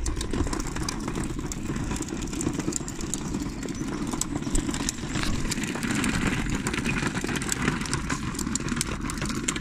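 Pushchair wheels rolling over brick paving stones: a steady rumble with fast, irregular small rattles.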